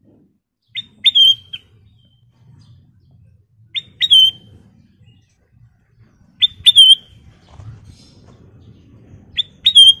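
Ruby-throated bulbul (kutilang emas) calling: four short, loud whistled calls about three seconds apart. Each is a quick flick of a note followed by a clear whistle that bends down at the end.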